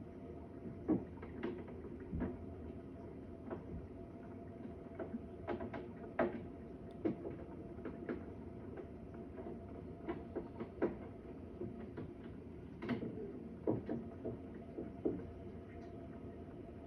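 Irregular knocks and clicks, some sharp and some duller, at uneven intervals over a steady background hum. The resident believes the noises come through the walls from a neighbouring flat.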